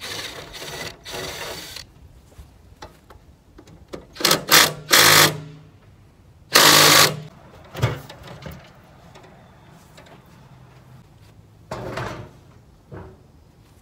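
Cordless drill-driver running in several short bursts, the longest and loudest about halfway through, backing out the screws that hold a mailbox to its wooden post.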